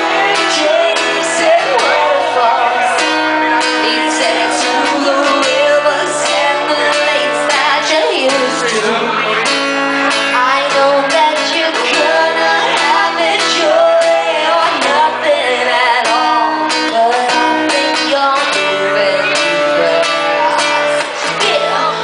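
Live acoustic song: strummed acoustic guitar with a singing voice, held notes over changing chords.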